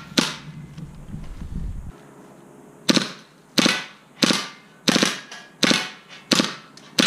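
KWA MP7 HPA-powered gas blowback airsoft machine pistol firing single shots, one sharp crack near the start and then a steady run of about six more, roughly one every 0.7 seconds.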